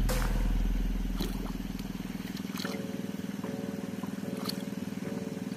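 A small engine running steadily, with a fast even pulsing beat; its deep low note fades out over the first couple of seconds. A few faint splashes of hands working in muddy water.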